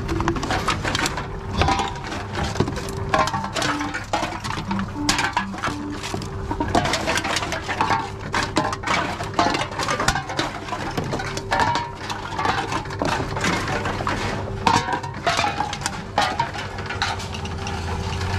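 Aluminium cans and plastic bottles clinking and clattering as they are fed into a reverse vending machine, roughly one a second, over the machine's steady hum.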